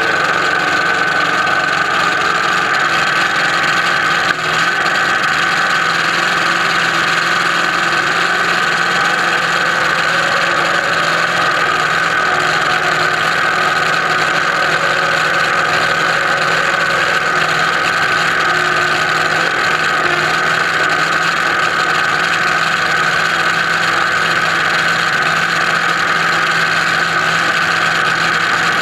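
Top Alcohol Dragster's engine idling steadily, heard close up from a camera mounted on the car.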